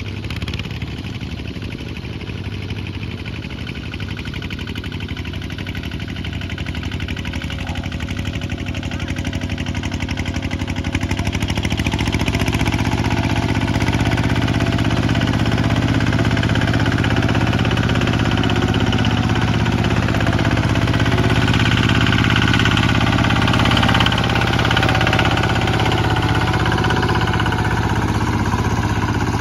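Kubota two-wheel walking tractor's single-cylinder diesel engine running steadily under load while pulling a disc plough through dry soil. It grows louder as the tractor approaches, from about a third of the way in.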